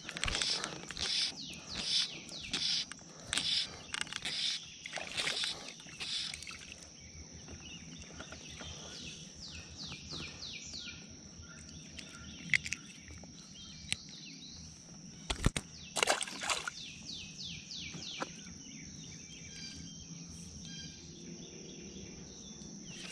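Birds singing, runs of quick falling chirps, strongest at the start and again partway through, over a steady high-pitched whine. A few sharp clicks or knocks come near the middle.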